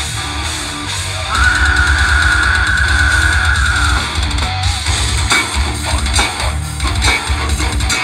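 Live extreme metal band playing loud: distorted electric guitar, bass guitar and drum kit. About a second in, a long steady high note is held for nearly three seconds, and after it the drums hit harder and faster.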